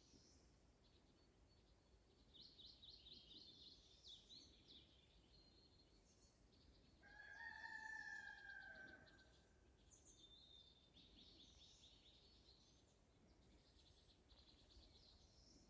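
Faint songbirds chirping on and off, with a rooster crowing once, a drawn-out call of about two seconds starting around seven seconds in, the loudest sound here.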